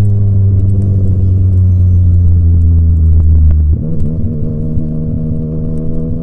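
Yamaha MT-09 (FZ-09) inline-three engine through an SC-Project aftermarket exhaust, running at steady revs while riding. Just before four seconds in the deep drone drops away and the level falls, leaving a lighter steady exhaust note.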